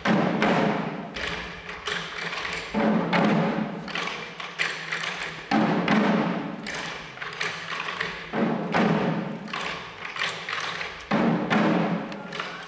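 Deer-dance drums worn at the dancers' chests, beaten in a fast run of strokes with a heavy accented beat about every three seconds.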